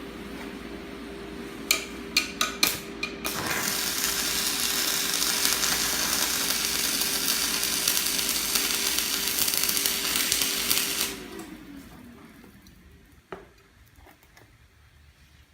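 Stick (MMA) welding arc from a Btec MMA-315M inverter welder with a 4 mm electrode: a few sharp crackles as the rod is struck about two seconds in, then a steady sizzling arc that stops about eleven seconds in. A steady tone runs under the arc and ends with it.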